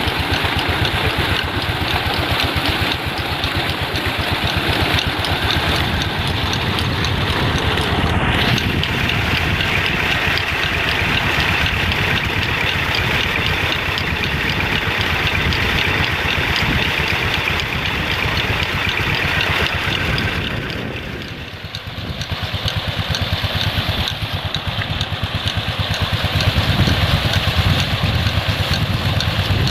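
Petter diesel engine of a tube well pump running steadily with a fast, even firing beat, dipping briefly about two-thirds of the way through.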